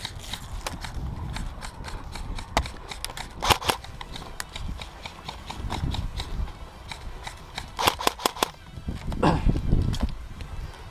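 Airsoft guns firing short bursts of rapid, sharp shots, one burst about three and a half seconds in and a quicker string of shots about eight seconds in, over low rustling and rumbling.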